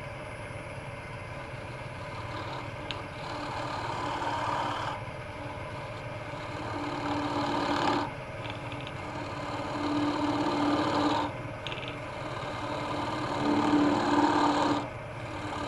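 Small carbide hollowing tool cutting into the end of a maple blank spinning on a wood lathe, in five passes of a second or two each over the steady hum of the lathe. The carbide cutter is dull; it needs help and should have been replaced a long time ago.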